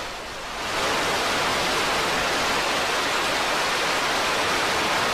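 Proton-M rocket's first-stage engines at liftoff: a loud, even rumbling roar that swells about a second in and then holds steady.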